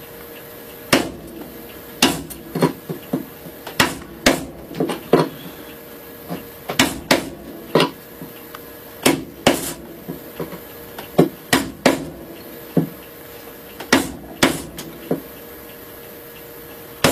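Wooden hand plane body being chopped out with a chisel struck by a mallet: about two dozen sharp, irregular knocks, often in quick pairs, as a screw hole is cut through and cleared.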